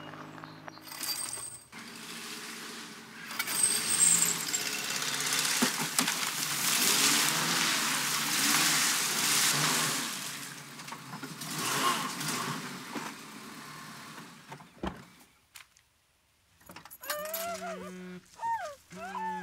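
A car driving along a dirt track, its engine and tyre noise swelling over several seconds and then fading away. Music plays at the start and comes back near the end after a short near-silence.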